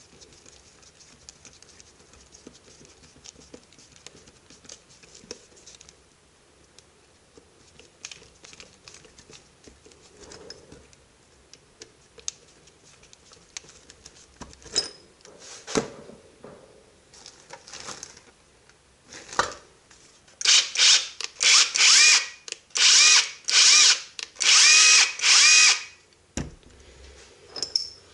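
Small cordless impact driver's electric motor run in about six short trigger bursts, whirring up and winding down each time. Before that, faint ticks and clicks of a hand screwdriver and small screws.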